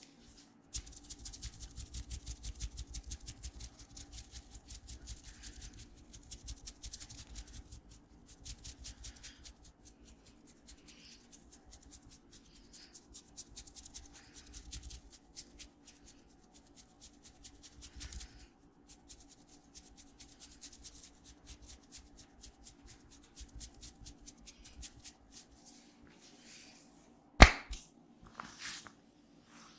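Hands tapping and slapping rapidly and rhythmically on a head and neck during a barber's head massage, many strikes a second with short pauses. Near the end comes a single much louder sharp smack, then a few lighter ones.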